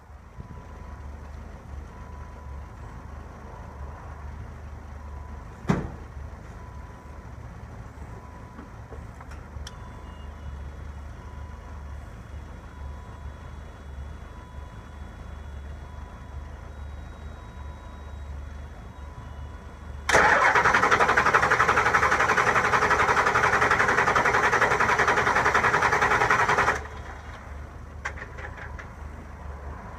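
Ford 7.3 Powerstroke V8 turbo-diesel cranking on its starter for about six and a half seconds, loud and even, then stopping without the engine settling into a run: a hard start after the injector o-rings were replaced. Before the cranking there is a steady low hum and one sharp click.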